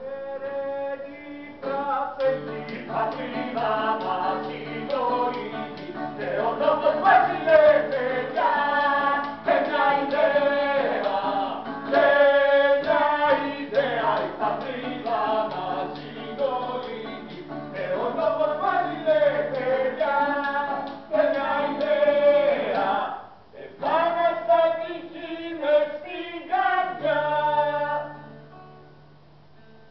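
Live singing of a song by several voices, accompanied by an acoustic guitar. The singing pauses briefly about three-quarters through and ends shortly before the close.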